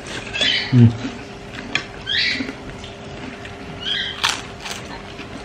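A person slurping noodles in three short bursts about two seconds apart, with chewing and mouth clicks between them and a brief low hum from the throat near the first second.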